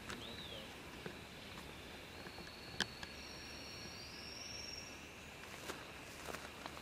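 Faint open-air ambience with a steady high-pitched whine. A short whistled note rises and falls just after the start, and a sharp click comes about three seconds in.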